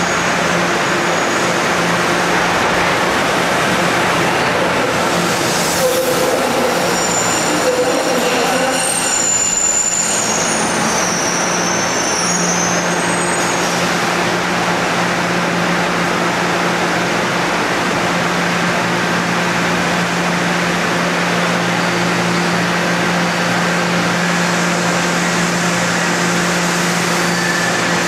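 Streetcar running with a steady hum, its wheels squealing with thin high, wavering tones for several seconds about a quarter of the way in.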